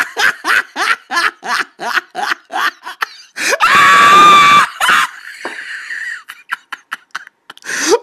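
Hysterical laughter: a rapid run of short laughs, about four a second, breaking into one loud, long, high-pitched shriek of laughter about three and a half seconds in, then trailing off into quieter short laughs.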